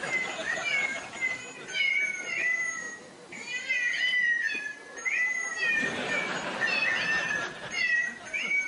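Cat meows, one after another, high-pitched with short sliding rises and falls, about one or two a second.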